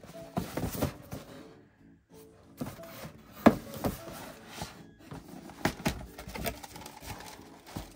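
Cardboard shoebox being handled: a string of knocks, taps and scrapes as it is turned over, put down and its lid worked loose, the sharpest knock about three and a half seconds in.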